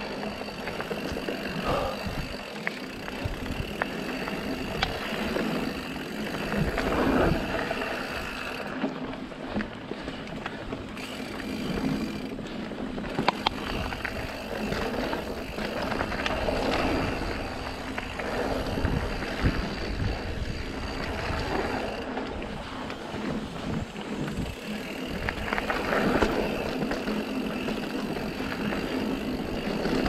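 Orbea Occam AM mountain bike riding fast down dirt singletrack: knobby tyres rolling over packed dirt and dry leaves, with the bike rattling and clicking over bumps. Wind buffets the unshielded action-camera microphone, adding a low rumble throughout.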